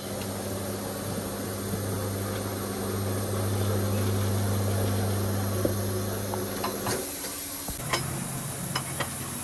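An electric motor of workshop equipment hums steadily with light clicks and knocks. About seven seconds in it stops, and a weaker hum at a slightly different pitch starts again a second later.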